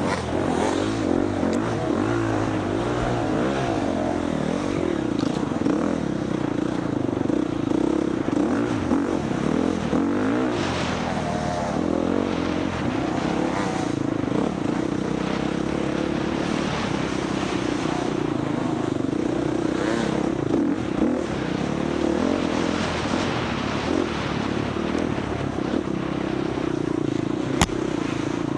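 Husqvarna FX 350 single-cylinder four-stroke dirt bike engine running hard off-road, revs rising and falling continuously as the rider works the throttle. A single sharp knock sounds near the end.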